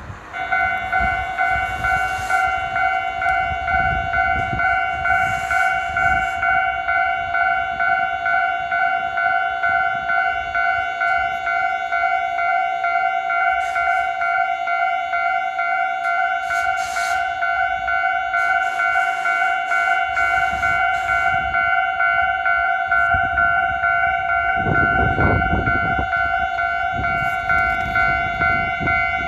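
Japanese railway level-crossing warning bell starting up and ringing without a break, a rapid electronic ding-ding at a steady pitch, signalling that a train is approaching. A passing vehicle rumbles under it near the end.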